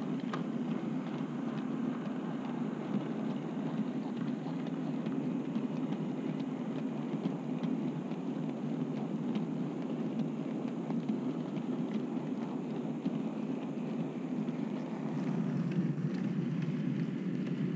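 OO-gauge model goods train of vans rolling past on the track: a steady rumble of wheels on rail with light scattered clicks. It gets louder near the end as the model Black 5 locomotive passes close.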